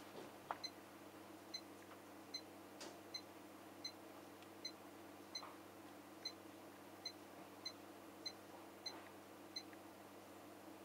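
Siemens IQ700 heat pump dryer's control panel beeping: a dozen or so short, high beeps in a steady row, about one every three-quarters of a second, as the program's drying time is stepped through. A few faint clicks come in the first few seconds.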